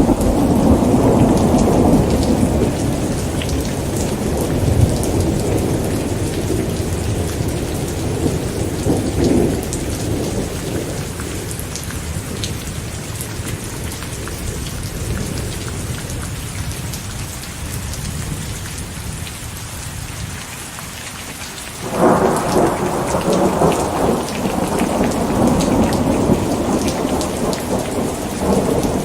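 Steady rain with thunder during a thunderstorm. A long roll of thunder dies away slowly over most of the stretch, then a new peal breaks in suddenly near the end and rumbles on.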